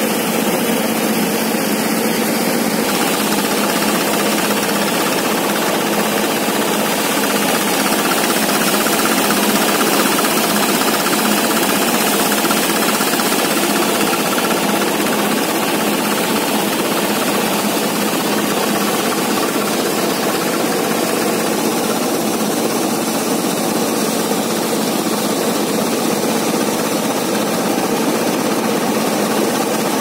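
Belt-driven wheat thresher running steadily under load, its drum beating the wheat sheaves fed into it: a loud, continuous mechanical rattle over the drone of the drive.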